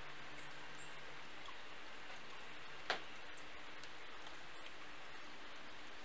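Steady hiss of background noise, with one sharp click about three seconds in and a brief high chirp a little under a second in.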